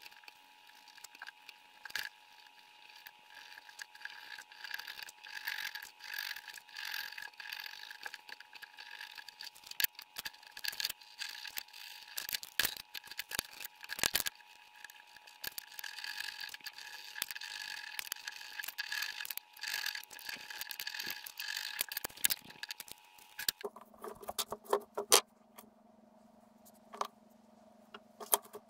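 Hand-stitching leather: needles pushed through the belt's buckle end and thread drawn tight, giving scratchy rustling and many small clicks, with the metal buckle clinking now and then.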